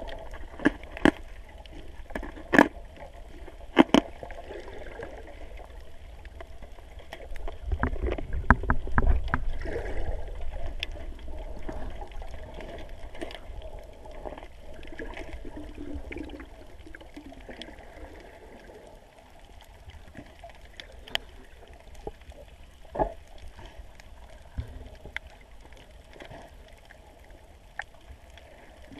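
Underwater sound picked up through a GoPro housing: a muffled wash of water with sharp metallic clicks and knocks as a knife and hands work on a wire-mesh fish cage. Several clicks come in the first few seconds, a louder low rumbling stretch follows around eight to ten seconds in, and two more clicks come after twenty seconds.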